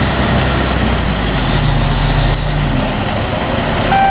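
Heavy diesel engine of construction machinery running steadily with a rough rumble. A reversing alarm starts beeping right at the end.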